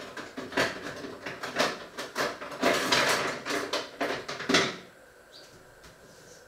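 Irregular clattering and rustling of things being handled, a busy run of knocks and scrapes that stops about five seconds in.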